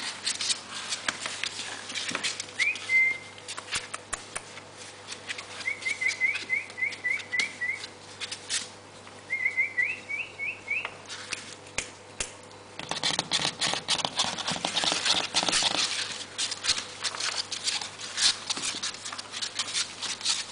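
23-day-old puppies stirring and crawling on wooden boards: many small claw taps and scratches, with runs of short, high, rising squeaks in quick succession in the first half. About two-thirds of the way through comes a few seconds of louder scuffling.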